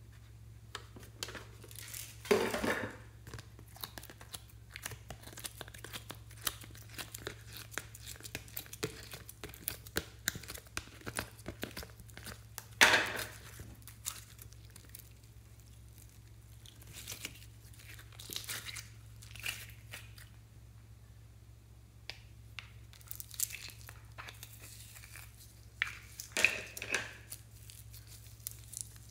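Slime being peeled from a mold and worked by hand into a glass dish: sticky crackling and tearing sounds, with three louder squishes or plops, about two seconds in, about thirteen seconds in and near the end.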